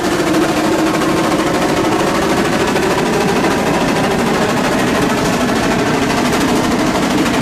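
Steam tractor running under load on its drive belt, with a rapid, steady beat.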